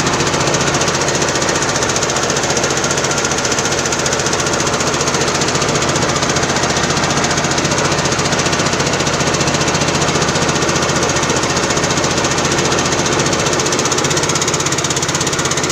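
Small engine running steadily at a constant speed, with a fast, even chugging.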